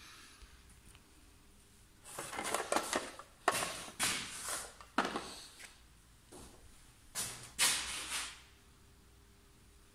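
A plastic-wrapped pack is handled on the conveyor of a Bizerba GLM-I weigh-price labelling machine: a run of short noisy bursts, several starting sharply, over about six seconds, then quiet.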